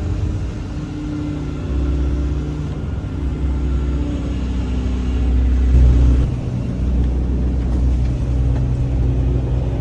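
A large engine running with a low steady drone; its note changes about six seconds in.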